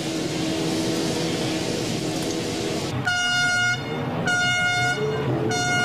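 A horn sounding in even, repeated blasts of one steady pitch, three of them about a second and a quarter apart, starting about three seconds in. Beneath it a steady low rumble and hiss.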